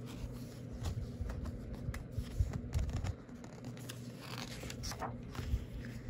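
A hand rustling and sliding over the paper pages of a picture book, with scattered small scrapes and clicks, then a page being turned near the end.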